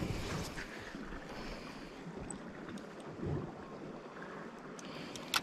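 Wind buffeting the microphone and sea washing against rocks, a steady low rush, with a sharp click just before the end.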